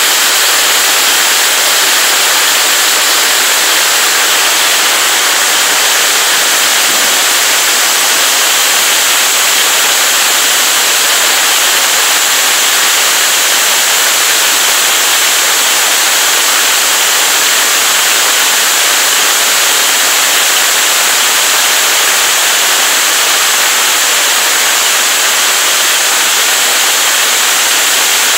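Heavy hailstorm: hailstones and rain pelting down on lawn, road and foliage in a loud, steady, dense hiss that never lets up.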